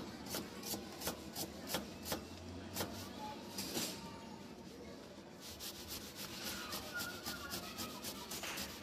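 Knife chopping onion on a wooden chopping board, a series of sharp knocks: spaced-out cuts at first, then quick, even chops about five a second from around the middle on.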